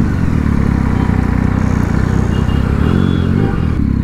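Triumph Street Triple's three-cylinder engine running at low road speed, with a brief rise and fall in engine pitch about three seconds in.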